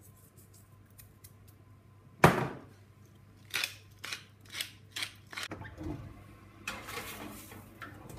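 Salt and pepper dispensed over the eggs in a run of short, gritty bursts, after one sharp knock about two seconds in.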